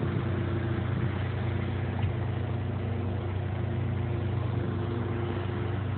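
Engine of the vehicle hauling a sunken John Deere tractor out of a manure lagoon by chain, running at a steady speed under the pull, with one faint knock about two seconds in.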